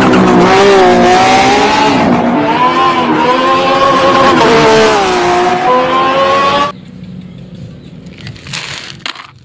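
Race car engine revving, its pitch rising and falling over a hiss of noise, then cutting off suddenly after about seven seconds.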